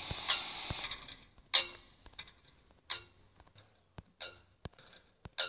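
A string of sharp mechanical clicks and knocks at irregular intervals, a few louder ones with a brief ring, the loudest about a second and a half in. A hiss fades out during the first second.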